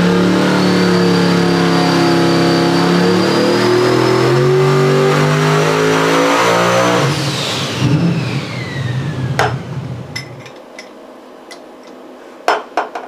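Twin-turbocharged LS V8 running hard on an engine dyno with a high turbo whine over it. About seven seconds in the throttle closes: the turbo whine falls away and the engine drops to a lower note and dies off. A few sharp knocks follow near the end.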